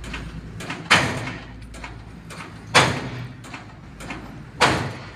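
Three loud bangs, about two seconds apart, each dying away within half a second, over a low steady hum.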